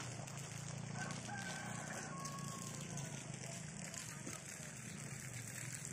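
A rooster crowing once, faintly, about a second in, its call breaking into a short note and a longer falling one, over a steady low hum.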